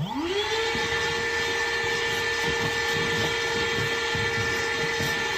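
A small electric motor in a handheld tool spins up, its whine rising quickly for about half a second, then runs at a steady, high-pitched whine.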